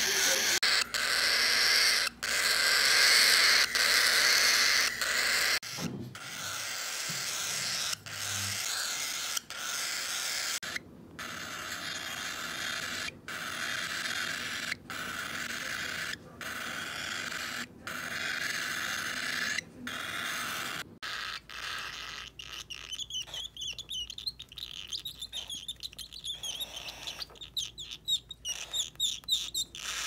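Baby cockatiel begging to be hand-fed from a syringe: hissing food-begging calls, in long stretches through the first part and quick short calls in the last third, with sudden breaks throughout.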